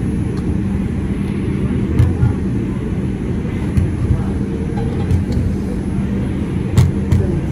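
A Bombardier R142 subway car running at speed between stations: a steady low rumble of wheels on rail with a constant hum under it. Sharp clacks come over rail joints, a pair about two seconds in, others near four and five seconds, and a louder pair near the end.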